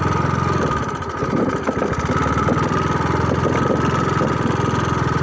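An engine idling steadily, with a rapid even pulse.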